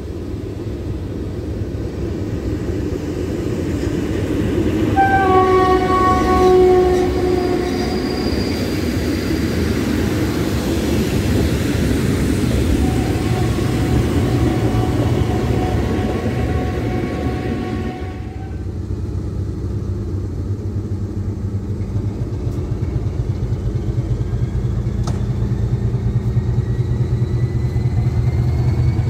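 Diesel-hauled train with SM30 shunting locomotives passing slowly, rumbling, while a locomotive horn sounds for about three seconds some five seconds in and then again, longer and quieter, from about twelve to eighteen seconds. After an abrupt change, an SM42 diesel locomotive's engine runs under load as it pulls away, with a rising whine.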